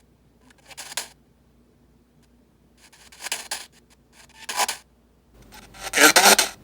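Spirit-box sweep radio heard through a DAS-ANC adjustable noise-control unit: short bursts of hissy radio static and fragments, four of them, with near-quiet gaps between where the unit holds down the sweep noise. The last burst, near the end, is the loudest and longest.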